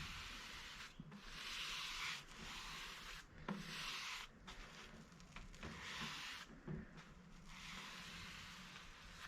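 Paintbrush strokes on wood as a coat of paint goes on: a run of soft scratchy swishes, each about a second long, with short pauses between them.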